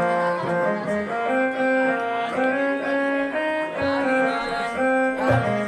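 Instrumental music: a melody of held, steady notes moving step by step, with no singing.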